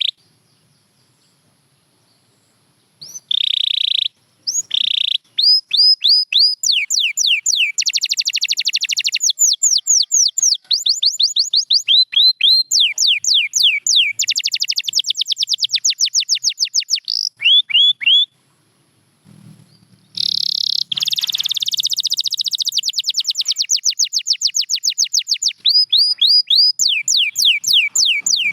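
Domestic canary singing: after about three seconds of quiet, a long song of fast trills and runs of rapidly repeated sweeping whistled notes, with a short break about two-thirds of the way through.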